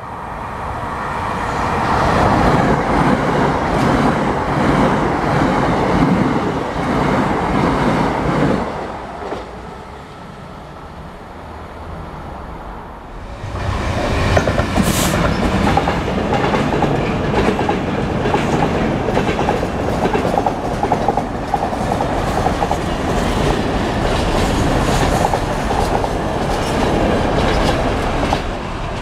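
Container freight train hauled by a Class 66 diesel locomotive passing close by, its wagons' wheels keeping up a steady clickety-clack over the rail joints. The locomotive arrives about 13 seconds in, after a loud stretch of rail noise in the first eight seconds and a lull, with a brief high-pitched tone just after it arrives.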